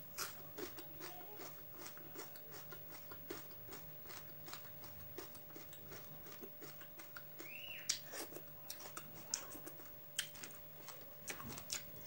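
A person chewing food, a steady run of soft wet mouth clicks and smacks. About seven and a half seconds in, a brief high call rises and falls.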